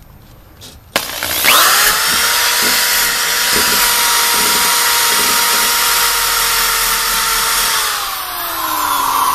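Handheld drill spinning a wire wheel brush against rusty car-body steel, stripping the rust to bare metal ready for welding. The motor starts about a second in with a rising whine, runs steady under a harsh scratching hiss, and winds down with a falling whine near the end.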